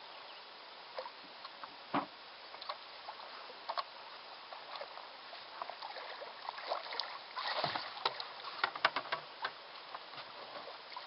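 Water splashing and sloshing beside a boat as a hooked striped bass is brought to the surface and scooped into a landing net, with scattered knocks. The splashing is busiest about seven to nine seconds in.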